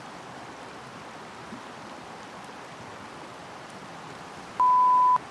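Steady rushing of a creek running over rocks. Near the end a loud, steady beep sounds once for about half a second.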